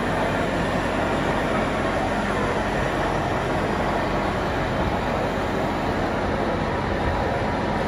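Steady, even rumbling din of a busy exhibition hall, with no single knock or clank standing out.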